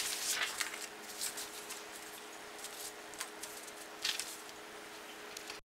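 A sheet of paper rustling and sliding over a cloth-covered table as it is moved and held flat, with a few sharper handling clicks and a faint steady hum; the sound cuts off abruptly near the end.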